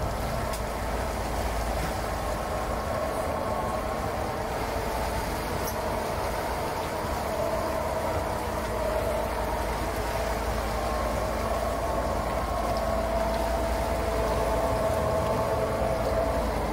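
Three Honda BF250 V6 four-stroke outboard motors running steadily at cruising speed, a constant engine tone over the rush of the churning wake, getting slightly louder near the end.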